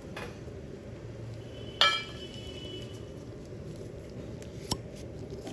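One sharp clink of hard treatment tools knocking together, ringing briefly, about two seconds in, then a smaller tick near the end, over a steady low background hum.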